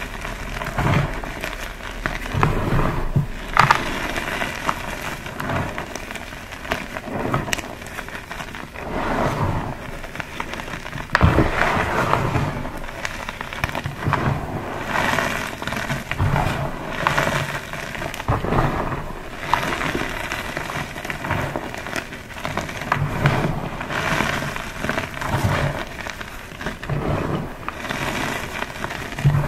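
Blocks of pasted gym chalk being crushed and crumbled: continuous irregular crunching and crackling, with a sharper crack a few seconds in and another near the middle.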